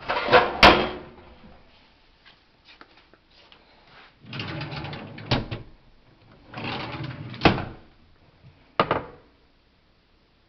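Wooden kitchen drawers and cabinet doors being slid open and shut: three sliding rumbles, each ending in a sharp knock as it closes, and a last single knock near the end.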